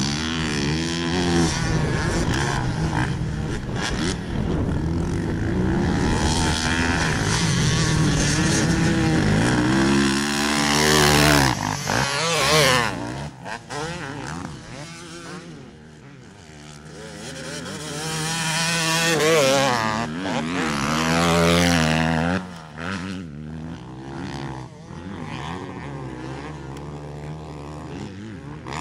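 Several motocross dirt bikes racing around a dirt track, their engines revving up and dropping back as the riders work the throttle and shift through jumps and corners. The bikes are loudest as they pass close about eleven seconds in and again around twenty seconds, then sound more distant.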